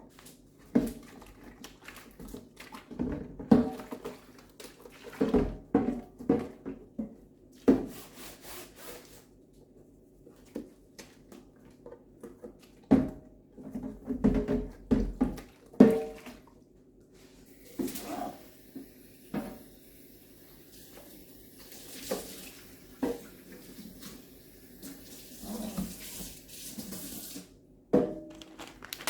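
A plastic food storage container being washed out in a kitchen sink. It knocks and scrubs against the sink in the first half, then a tap runs steadily for about ten seconds while the container knocks under it.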